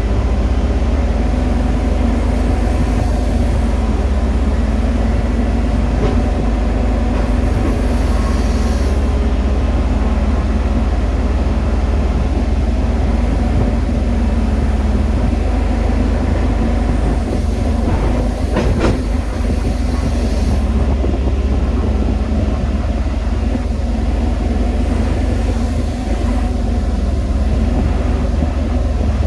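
JCB 215 excavator running steadily with a loud, deep rumble, and a faint high hiss that rises twice and fades.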